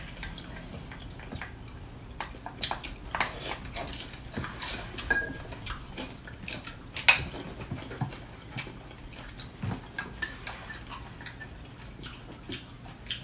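Chopsticks and utensils clicking and clinking against ceramic bowls and plates while eating: irregular light taps, the sharpest about seven seconds in.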